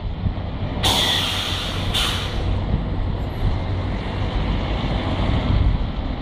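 Long-reach demolition excavator running with a steady low rumble, with two sudden bursts of hiss about one and two seconds in.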